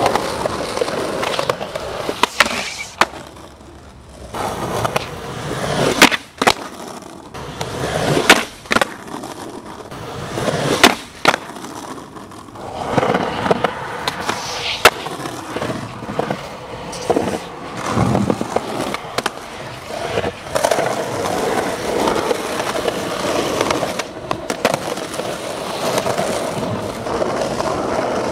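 Skateboard wheels rolling over concrete pavement with a continuous rumble, broken again and again by sharp clacks of the board and trucks hitting the ground.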